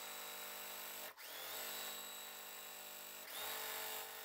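Electric sewing machine stitching a seam at a steady speed, its motor whine stopping for a moment about a second in, starting up again, and running a little louder again near the end.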